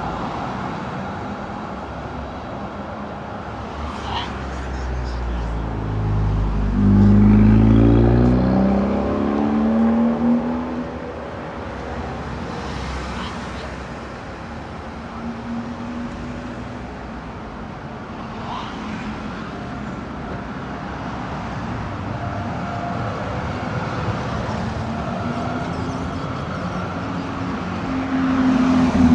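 City street traffic with trams and cars passing. About six seconds in, an engine accelerates hard, its note rising, and is the loudest sound. Another engine rises in pitch near the end.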